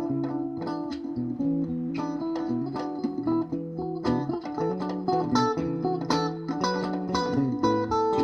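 Background music: guitar playing plucked notes over a moving bass line.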